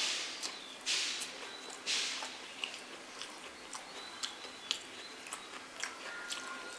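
Close-up eating sounds: a mouthful of rice and egg curry chewed with many small wet mouth clicks, and three short hissing breaths in the first two seconds.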